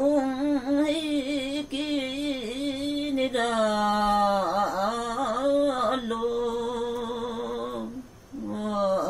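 A woman singing unaccompanied in the traditional Limbu Tam:awke style: long held notes that waver and slide in pitch, with a short break for breath near the end.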